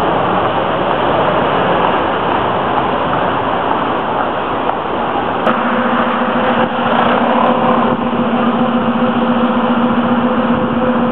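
Loud steady outdoor traffic noise. About five and a half seconds in there is a click, and a steady low hum joins the noise.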